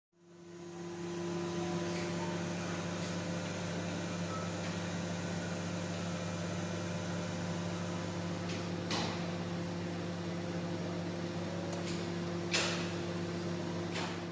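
Convection microwave oven running with a steady hum while baking. Three sharp clicks come in the second half, the loudest about 12½ seconds in.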